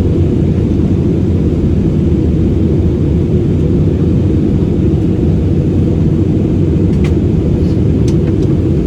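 Steady low rumbling drone inside the cabin of an Airbus A320-216, the noise of its CFM56 turbofan engines and airflow heard from a rear window seat. A few faint clicks sound near the end.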